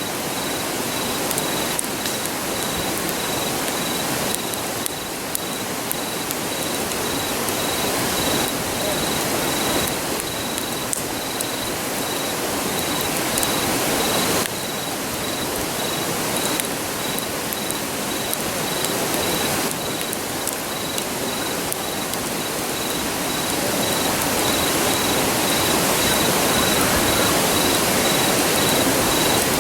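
Steady rushing roar of a river. A regular insect chirp pulses high above it, and faint crackles from a campfire come through now and then.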